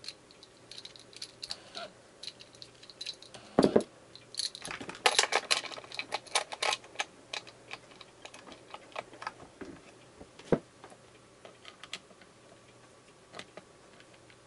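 Hard plastic and metal clicks, clacks and rattles of a replica optic and its mount being fitted onto an airsoft rifle's top rail, with a run of louder clacks from about three and a half to seven seconds in.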